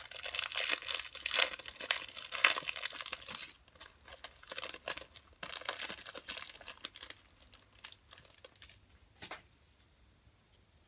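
Foil wrapper of a baseball-card pack being torn open and crinkled. The crinkling is dense for the first three and a half seconds, then turns into sparser crackles and rustles that die away near the end.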